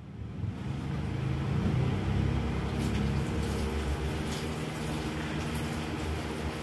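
Portable table-top stove running under a pan of water as it heats, a steady low hum and rumble that builds over the first second and then holds.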